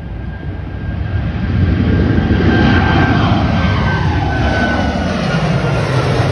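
Boeing 737 MAX 8 jet with CFM LEAP-1B engines passing by at departure power. It grows louder over the first two seconds, then holds as a loud rumble, while its engine whine slides down in pitch as it goes past.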